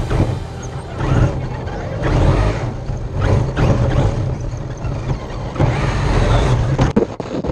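Traxxas X-Maxx electric RC monster truck driving fast over grass and onto pavement, heard from a camera mounted on the truck: the motor and drivetrain running under rushing wind and the rattle of tyres and chassis over the bumps. A few sharp knocks come near the end.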